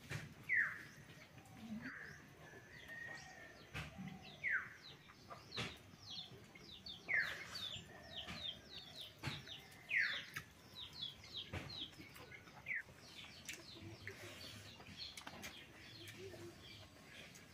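Birds calling: a repeated call that slides downward in pitch every couple of seconds, with a quick run of high chirps through the middle, and a few soft clicks.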